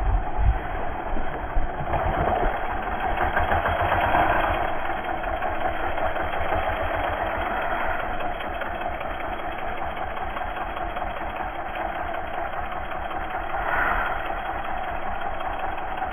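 Off-road motorcycle engine running with a fast, even pulse, giving a few sharp blips in the first two seconds and swelling a few seconds in and again near the end.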